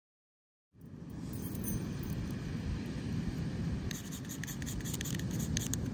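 Silence at first, then a low steady rumble. About four seconds in, a steel striker starts scraping along a ferro rod held into a nest of dry grass tinder, in a quick run of short rasping strokes that throw sparks to light the tinder.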